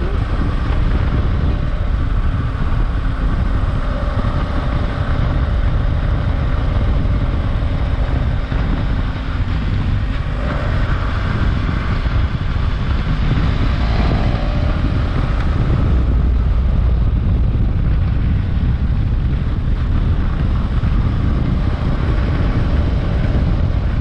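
BMW F800GS parallel-twin engine running through its stock exhaust while the bike is ridden on the road, its pitch shifting with the throttle around the middle, over a steady rush of wind on the microphone.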